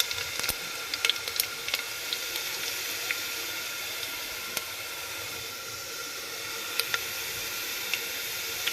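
Onions frying in hot oil in a pan: a steady sizzle with scattered sharp crackles, busiest in the first couple of seconds.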